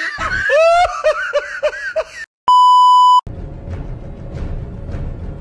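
A wavering, sliding pitched sound for about two seconds. Then comes a single loud, steady beep lasting under a second. Background music with a steady beat follows.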